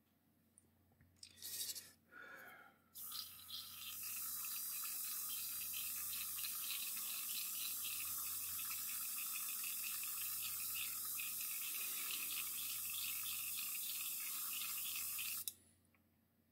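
Gravity-feed airbrush spraying paint: a few short bursts of air hiss, then a steady spraying hiss for about twelve seconds that cuts off sharply near the end.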